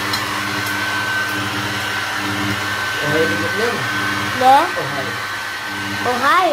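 Handheld hair dryer running steadily, blowing on a dog's fur, its motor giving a constant whine over the rush of air. Over it, rising-and-falling vocal calls come twice, about halfway through and loudest near the end.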